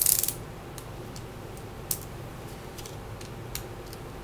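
Faint, scattered small clicks and ticks of a screwdriver working the tiny Phillips screws that hold a laptop's SSD, metal tip and screw against the drive bracket, with a short rustle right at the start.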